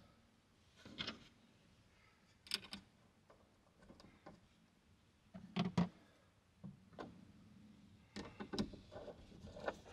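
Scattered light clicks and knocks of hands handling a steel shelf bracket and its bolt hardware against a wooden shelf board. The loudest knock comes a little past halfway, and the clicks come thicker near the end.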